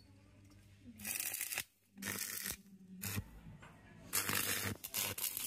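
Welding on the steel frame of a homemade car, crackling in four separate bursts of about half a second to a second each.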